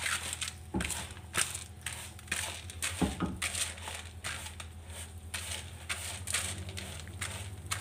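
Hands squeezing and mixing soaked glutinous rice with grated coconut and banana in a plastic basin: a short crunching sound with each squeeze, two or three a second and unevenly spaced, over a steady low hum.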